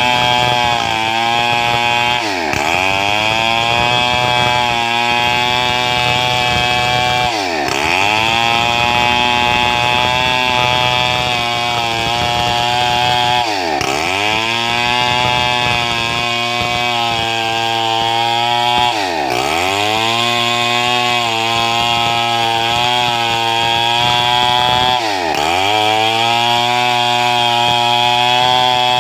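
Stihl 070 chainsaw, a large two-stroke, running at high revs while sawing gmelina boards. Its engine speed drops sharply and climbs straight back about every six seconds, five times.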